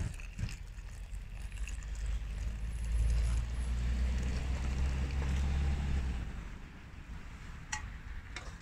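Hot water poured from a jug into a freeze-dried meal pouch to rehydrate it: a steady pour that starts about a second in, grows louder and stops about six seconds in.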